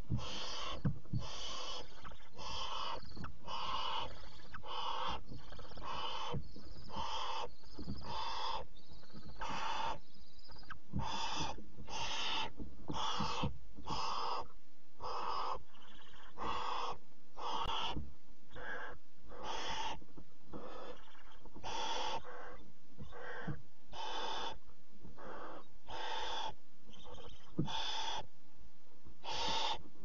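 Barn owl chicks begging for food: a continual run of harsh, rasping hisses, about one to two a second.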